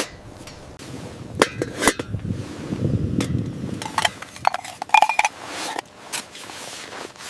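Metal camp gear being handled: a run of sharp knocks and clicks, with short ringing metallic clinks about four to five seconds in and a low rumble around three seconds.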